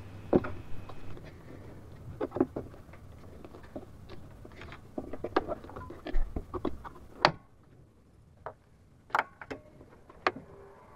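Scattered small plastic clicks and knocks as the air cleaner box lid is wiggled and its clips fastened, with a sharper snap about seven seconds in and a few single clicks after it.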